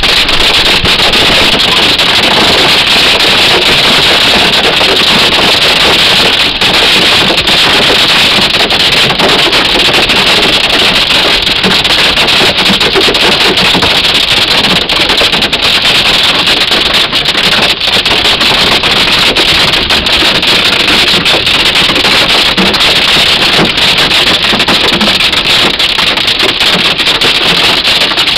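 Hail drumming on a car's roof and windshield, heard from inside the car: a loud, dense, unbroken clatter of countless small impacts.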